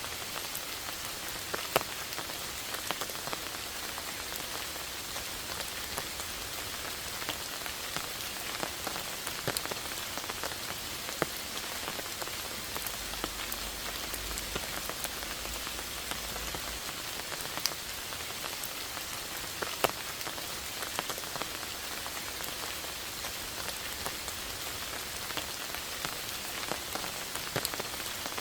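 Steady rain falling, with a constant hiss and many close individual drops ticking, a few louder drop hits scattered through.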